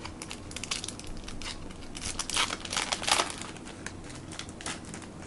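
Trading-card pack wrapper crinkling as it is handled, with irregular crackles that are loudest about two to three seconds in.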